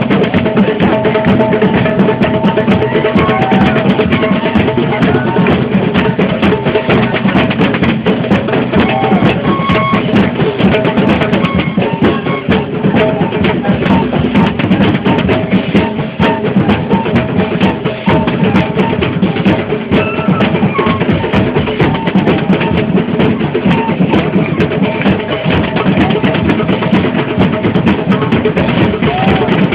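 Protest crowd drumming: many drums and other percussion beaten together in a dense, continuous din, loud and cramped-sounding on a phone's microphone.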